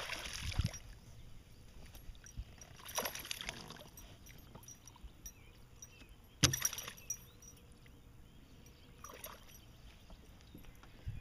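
A hooked bass splashing at the water's surface beside a boat as it is played in and landed: splashes right at the start and again about three seconds in, and a sharp smack about six and a half seconds in.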